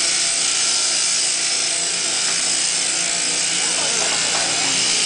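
Sheep-shearing handpiece driven from an overhead shaft, running without a break as it clips through the fleece: a steady, dense buzz with a low hum underneath.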